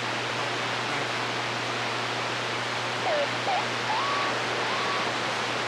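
CB radio receiver hissing with steady band static between transmissions, over a low steady hum. Faint wavering whistles of distant stations come through about three to five seconds in.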